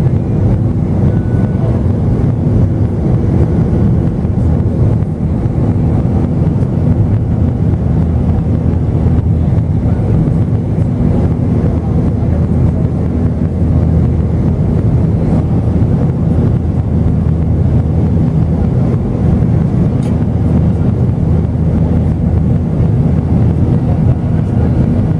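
Steady cabin noise of an Airbus A320-212 in its initial climb after takeoff: the wing-mounted CFM56-5A3 turbofans running at climb thrust, a loud even low drone with a steady hum and rushing air over it.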